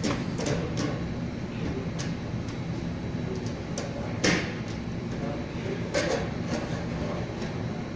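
Steady low mechanical hum with scattered knocks and clanks, the sharpest about four seconds in.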